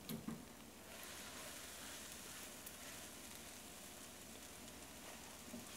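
Faint, steady sizzling of scrambled eggs cooking in butter in a Teflon nonstick pan, with the burner just turned off. A few soft knocks of a silicone spatula against the pan come just after the start and again near the end.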